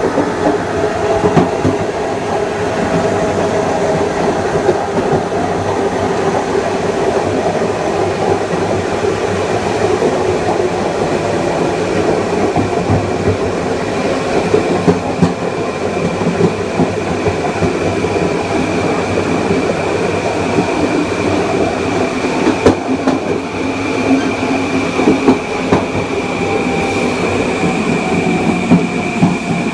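Kawasaki M9 electric multiple unit running, heard from on board: its Mitsubishi IGBT-VVVF inverter and AC traction motors whine over continuous wheel-and-rail rumble. A high steady whine grows stronger from about halfway through, and lower whines slowly fall in pitch near the end.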